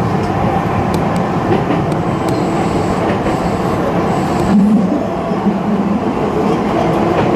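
Tokyu Toyoko Line electric train running along the track, heard from inside the front car: a steady rumble of wheels and running gear, with a few short clicks from wheels passing over rail joints.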